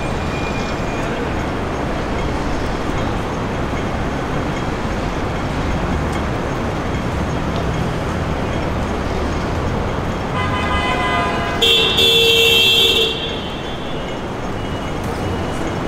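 Steady city street traffic noise, with a vehicle horn sounding about two-thirds of the way through: a softer note for over a second, then a louder blast of about a second and a half.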